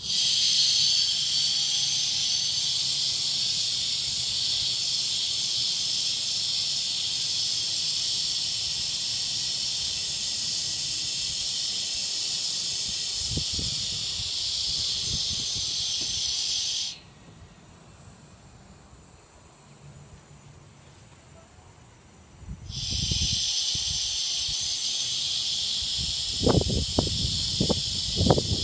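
Compressed air hissing steadily as it is fed through an inline filter and PVC manifold into a fluidized sand bed; the hiss starts abruptly, cuts off about two-thirds of the way through, and comes back about five seconds later. Soft low thumps and bumps from the sand and hand are heard near the end.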